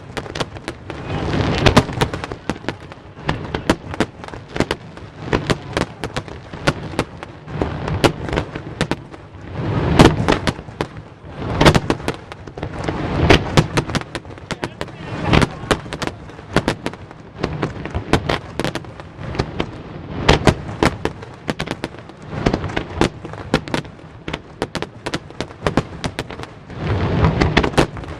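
Fireworks display: a dense, continuous run of sharp bangs and crackles, several a second, with bursts of heavier booms every few seconds.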